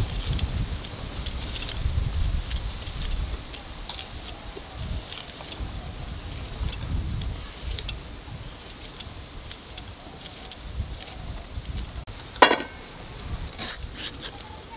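Fresh bamboo shoot being shaved and trimmed against a boti's fixed curved blade: irregular crisp cutting clicks and scrapes as the peel comes away, with soft handling bumps. One louder knock with a short ring comes about twelve and a half seconds in.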